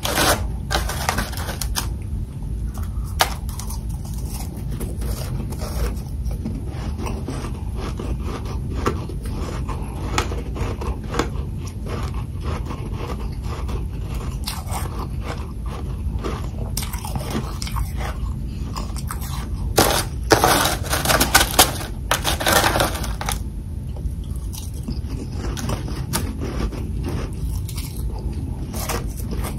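Heavy freezer frost being bitten and chewed, with sharp crunches scattered throughout and a louder run of crunching bites about twenty seconds in, over a steady low hum.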